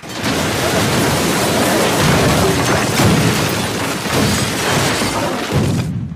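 Film sound effects of a whirlwind of debris tearing through a house: a loud, dense rush of crashing and shattering with booms, starting abruptly and dropping away suddenly after about six seconds. It is the magic mess being swept back out of the house.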